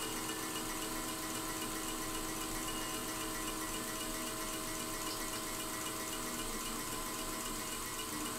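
Soft sustained mallet roll on a keyboard percussion instrument, a shimmering wash of several held pitches that stays even in level.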